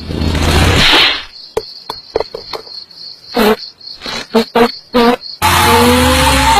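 Cartoon insect sound effects. A rushing whoosh for about the first second, then a sparse string of small clicks and squeaky chirps, then, about five seconds in, a loud steady buzz with a slightly rising tone as a ladybird flies past at speed.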